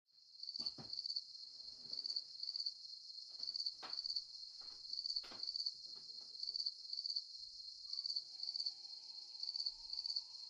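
Insects chirring in a steady, high-pitched chorus that pulses in regular pairs, with a few faint knocks underneath.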